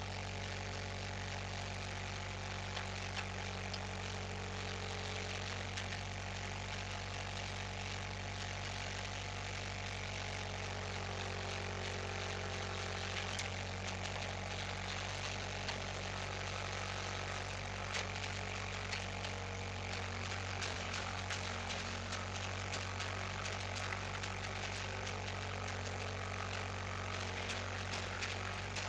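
An engine running steadily at idle, with scattered light clicks over it.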